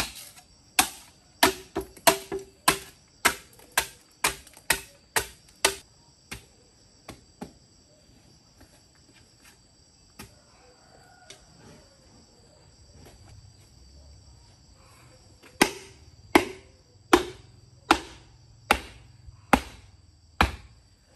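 Knife chopping on a cutting board: a run of sharp strikes about two a second, a pause with a few light taps, then another run of slower strikes near the end.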